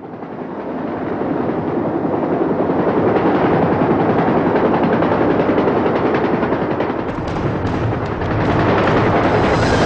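Battle soundtrack of dense, rapid gunfire mixed with dramatic music, swelling in over the first second and staying loud.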